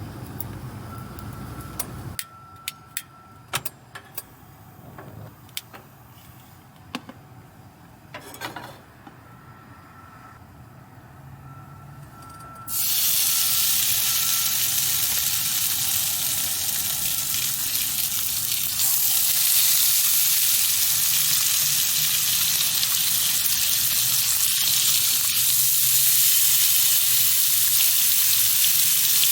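A few light clicks and knocks, then about halfway through bacon starts sizzling loudly in a frying pan, turning louder a few seconds later.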